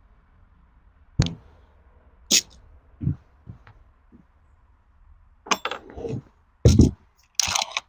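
Gamo Speedster Gen 2 .22 break-barrel air rifle being handled: a string of separate sharp clicks and clacks of the action and magazine, thickening into a cluster later on, with the loudest deep clack about seven seconds in.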